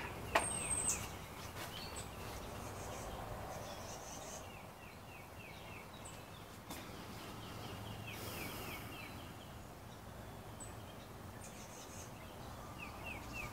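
Faint outdoor ambience: a bird calls in repeated runs of short, quick high notes, with a couple of knocks about a second in.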